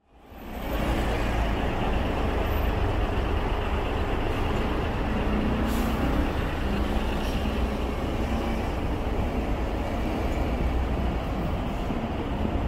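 Steady city street noise, mostly a low rumble of passing traffic, fading in at the start.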